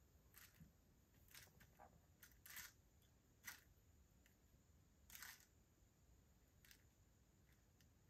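Faint, scattered plastic clicks and light rattles of perler beads as metal tweezers pick them out of a plastic compartment box and set them onto a pegboard, the sharpest click about three and a half seconds in.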